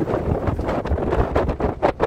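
Wind buffeting the microphone of a moving vehicle in gusts, over a low rumble.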